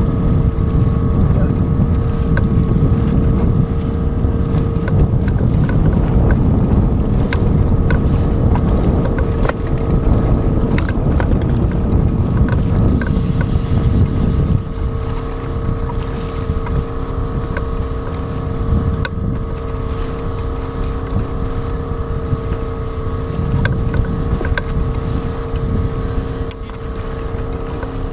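Small outboard motor running steadily at trolling speed, a constant hum with a few steady tones. Heavy wind buffets the microphone for the first half and eases about halfway through.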